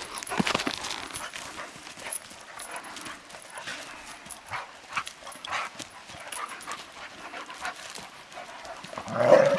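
Dogs moving about in undergrowth, panting, over irregular footsteps and the crackle of brush. About nine seconds in comes a louder, brief dog sound.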